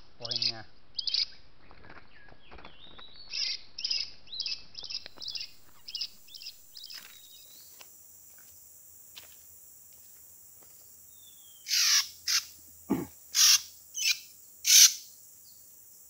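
Oriental magpie-robin (kacer) calls: runs of short, high chirps, two or three a second, fading out over several seconds, then after a lull a handful of louder, sharper calls near the end.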